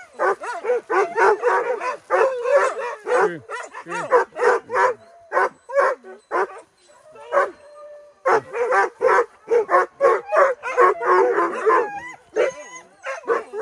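A pack of hunting dogs barking and yelping in quick succession, many voices overlapping, with a short lull about seven seconds in: dogs giving chase to a wild boar.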